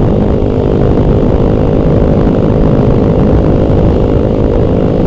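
Honda XR200R's single-cylinder four-stroke engine running at a steady pace while riding, with heavy wind rumble on the microphone.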